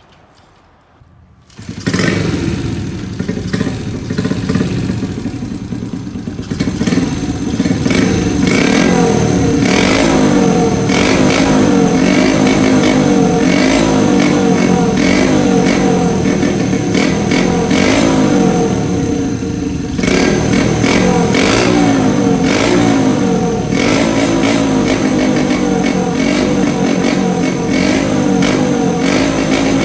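Custom Honda Monkey's small single-cylinder four-stroke engine running through a Pretty Racing CB400F-style exhaust. It comes in suddenly about two seconds in and keeps running loudly, its note rising and falling with the throttle.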